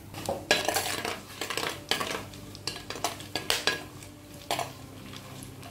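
A metal spoon stirring whole spices in hot oil in a clay pot, scraping and clinking irregularly against the pot's sides and bottom.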